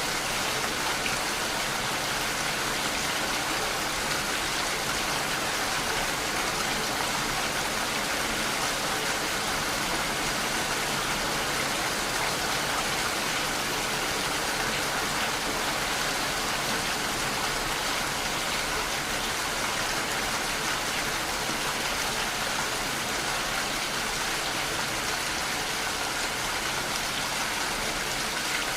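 Steady rain falling, a continuous even hiss of drops on a surface.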